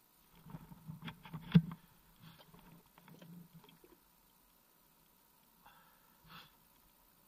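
Irregular knocks and rubbing from hands handling the plastic hull of a Yamaha SuperJet stand-up jet ski, with its engine off. The loudest is a sharp knock about a second and a half in, followed by softer scrapes and two light knocks near the end.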